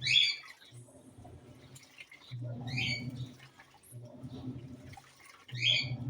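Panasonic 14 kg washing machine agitating its load during the soak stage: a short motor hum with a swish of water, repeating about every three seconds, three times.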